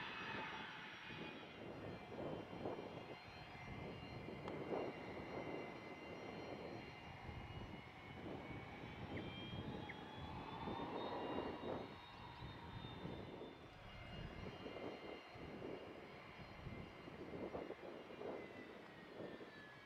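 Fokker 70 jet's two Rolls-Royce Tay turbofans whining at taxi power. The whine rises slightly in pitch around the middle and eases back toward the end, over an uneven low rumble.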